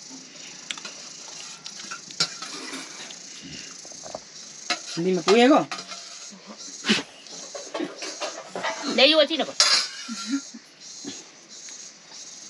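Stainless steel bowls and plates clinking and knocking, with scattered sharp clinks, while food is mixed and eaten by hand.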